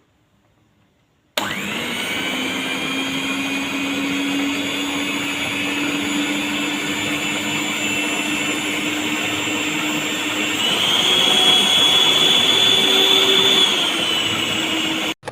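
Electric motor of a Pensonic PM-214 mixer running with a steady whine, starting about a second and a half in. Its pitch steps up about ten and a half seconds in and drops back a few seconds later, as a change of speed would do. The motor stops abruptly near the end.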